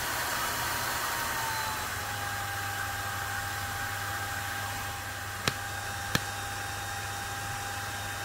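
Coolerguys 1U server CPU cooler's small high-speed fan running under benchmark load, blowing like a jet engine: a steady rush with a high whine, whose pitch drops slightly between one and two seconds in. Two sharp clicks come a little past the middle, about two-thirds of a second apart.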